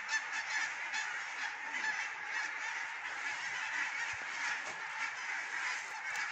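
A large flock of geese honking in a steady, dense chorus of overlapping calls.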